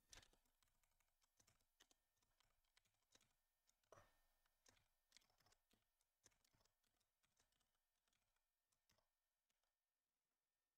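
Faint, irregular keystrokes on a computer keyboard: typing.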